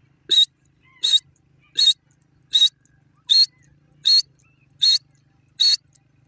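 Grey francolin calling: short, loud notes repeated evenly about every three-quarters of a second, eight in a row.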